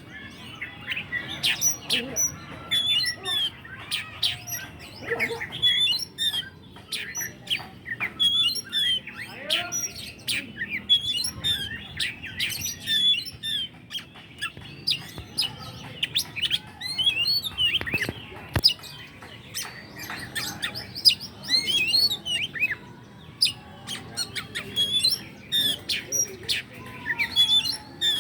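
Oriental magpie-robin singing in full song: a fast, varied, unbroken stream of whistles, chirps and trills, with a sharp click about two-thirds of the way through.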